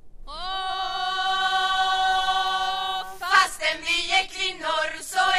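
Choir singing in Swedish: one long held note for about three seconds, then the verse sets off in a steady rhythm.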